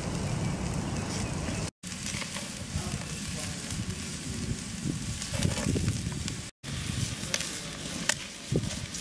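Chicken thighs sizzling on the grate of a Weber charcoal kettle grill over hot charcoal, a steady hiss with scattered crackles and pops. The sound cuts out briefly twice.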